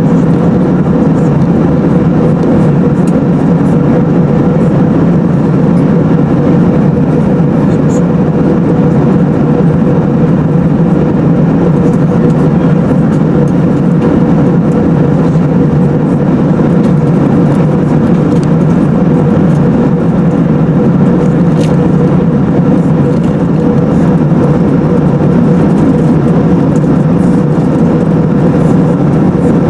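Steady cabin noise of an Airbus A380 at cruise, heard from a window seat over the wing: rushing airflow and engine drone with a steady hum tone, unchanging throughout.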